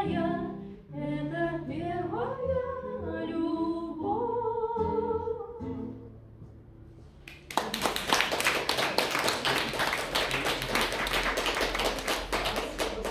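A woman sings the closing notes of a song to her acoustic guitar, and the last notes fade out. About seven and a half seconds in, an audience breaks into steady applause.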